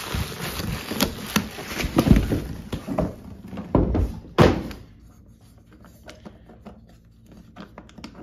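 Bubble wrap and cardboard crinkling as a steel ammo can is handled, with several heavy thunks of the can, the loudest about four and a half seconds in. After that it goes quieter, with a few light clicks.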